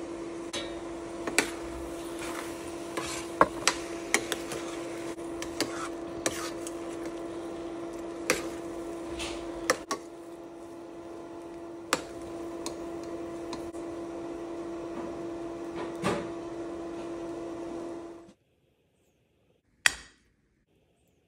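Spatula stirring thick rava upma in a stainless steel pan, scraping and tapping sharply against the metal over a steady electric hum. Near the end the hum cuts off, followed by a single sharp knock of a steel bowl against a plate.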